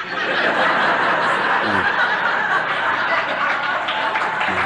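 A large audience laughing and applauding, breaking out all at once right after a punchline and keeping up steadily.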